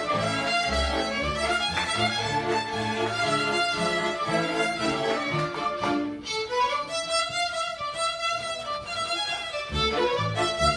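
Small bowed string band playing a Yiddish folk tune: a fiddle melody over a pulsing low accompaniment. The low part drops out for a few seconds past the middle, leaving the fiddles with a rising slide, and comes back near the end.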